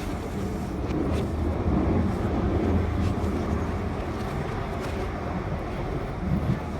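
London Underground train running: a steady rumble that swells a little about two to three seconds in, with a few faint clicks.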